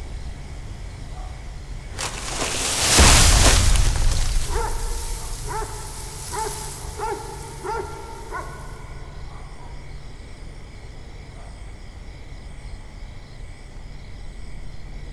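A loud rumble of thunder swells up two seconds in and slowly fades. While it dies away, a dog barks about seven times in a steady run, over a steady low hum.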